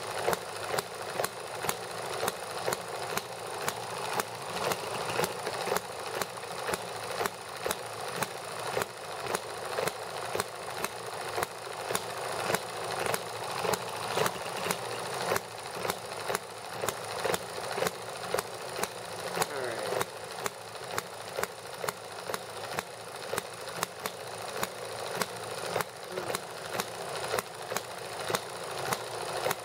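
Small horizontal model gasoline engine running steadily, with sharp firing pops about twice a second over a fast mechanical ticking.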